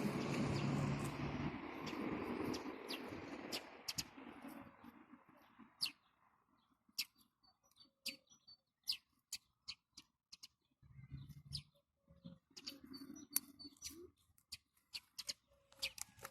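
Butter slime being mixed and worked by hand. A soft rustling fades over the first few seconds, then comes a run of sharp, irregular sticky clicks and pops.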